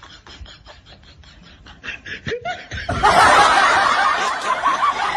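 A quick run of ticks, about six a second, then a short vocal cry, and from about three seconds in loud laughter.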